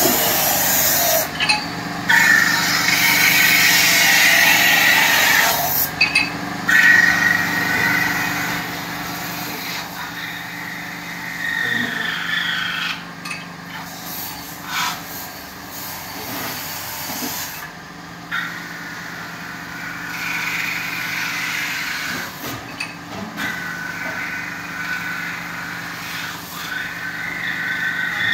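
Lathe running with a steady hum while a long hand-held cutting bar is pressed into a spinning aluminium pot, scraping metal off in repeated passes of a few seconds each, with short pauses between them.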